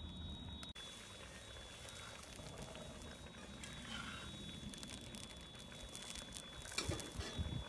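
Spicy broth with tofu bubbling in a cast-iron wok over high heat, with a few sharp knocks near the end.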